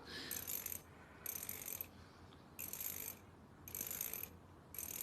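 The teeth of a comb being scratched, with five short rasping zips at about one a second.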